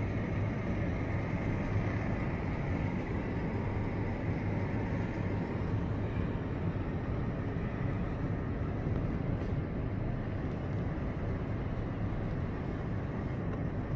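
Steady low rumbling background noise with a hum at the bottom end, even throughout with no distinct events.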